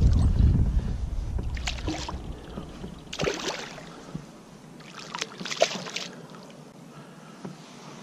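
A hooked striped bass splashing at the surface beside a kayak, in several short bursts as it thrashes on the line. A low rumble fades out over the first two or three seconds.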